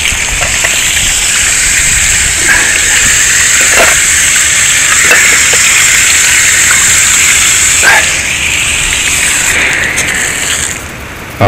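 Garden hose spray nozzle spraying water onto fish on a plastic cutting board, rinsing them after scaling. The spray makes a steady, high hiss that shuts off near the end.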